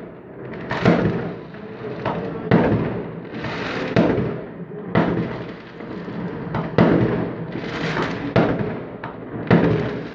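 Fireworks salute shells bursting: a string of sharp bangs, roughly one a second, each trailing off in a rumble.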